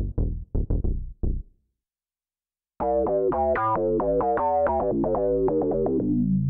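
Native Instruments Massive software-synth bass patches from the Maschine 2.5 library, played from a keyboard. The Eldritch patch plays short staccato notes about four a second, stopping about a second and a half in. After a pause the Kiki patch comes in as a continuous synth bass line of quickly changing notes.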